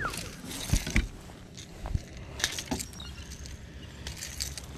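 Scattered light clicks and knocks of handling: a hand lifting a largemouth bass out of a rubber landing net on a boat deck and working the lure free of its mouth.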